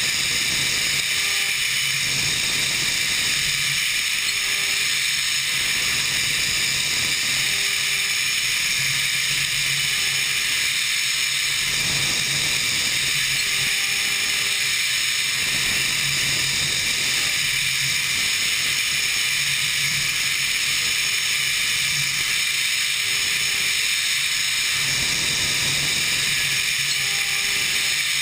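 DMG Mori NVX5100 vertical machining centre milling a metal part: a steady high hiss from the spindle and the cut, over a low hum that swells and fades. Short faint tones recur every few seconds.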